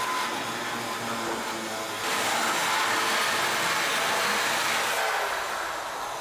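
Cordless drill running as it drills into a door frame, starting about two seconds in with a steady whir and winding down near the end.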